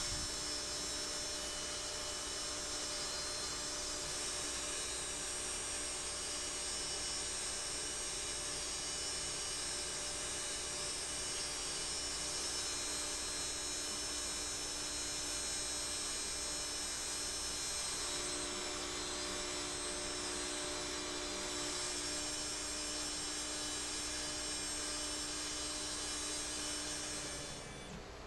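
CNC router spindle running steadily as a 1/16-inch end mill carves shallow passes into a wooden sign: a steady high-pitched whine over a low hum. It cuts off about a second before the end.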